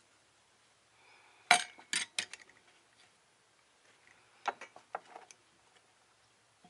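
Metal-on-metal clinks at a workbench as a steel block and a scriber are handled on an aluminium strip over a steel plate. There is one sharp clack about a second and a half in, then three lighter clinks. A few seconds later comes a quieter cluster of small metallic ticks.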